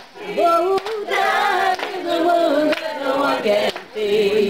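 A group of people singing a song together, ending on a held note near the end.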